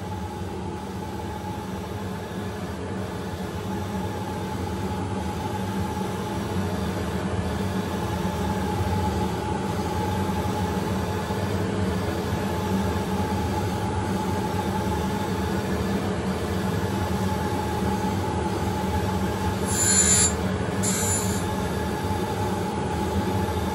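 Okamoto ACC-818NC surface grinder running, its grinding wheel spinning with a steady whine while the table traverses under it and the wheel is fed down very slowly toward the work. The sound builds gradually, and near the end come two brief hissing bursts as the wheel starts to touch off on the steel work.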